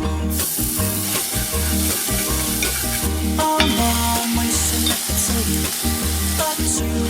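Potatoes sizzling in a hot pan and being stirred, with a few scrapes of the spatula. Background music with a pulsing bass plays underneath.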